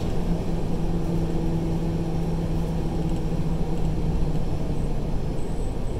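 Semi-truck's diesel engine and road noise heard inside the cab while rolling in slow traffic: a steady low drone with a humming tone that eases off near the end.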